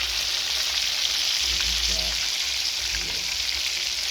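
Chicken pieces frying in hot oil: a steady, dense sizzle with a faint low hum underneath.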